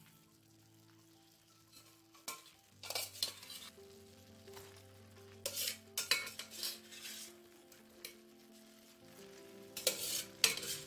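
Sizzling and frying in hot ghee masala in a pan, coming in loud bursts as cooked prawns are tipped in, with a clatter of utensils against the pan.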